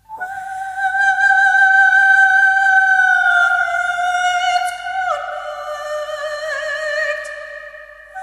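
A long, high, wordless note in an avant-garde piece, most likely a voice singing in an operatic style with a slight waver. It begins a moment in out of silence, slips a little lower in pitch about five seconds in and fades, and a new held note starts right at the end.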